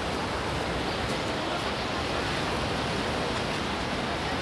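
Steady wash of outdoor noise: surf breaking on the beach mixed with the murmur of a crowd.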